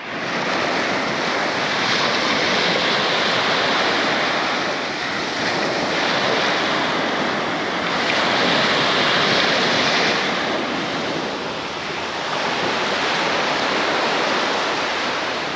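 Small waves breaking and washing up a sandy beach, the surf swelling and easing every five or six seconds.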